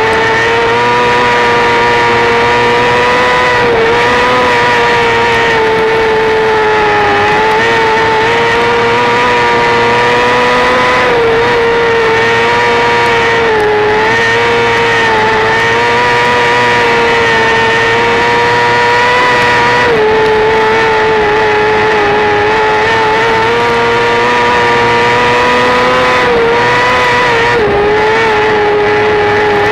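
Formula 500 dirt-track race car's 500cc motorcycle engine running hard at high revs, heard from on board the car. The pitch holds high and steady, with brief small dips every few seconds.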